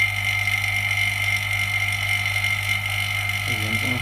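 Steady machine hum with a constant high whine, unchanging throughout. A brief voice sound comes in near the end.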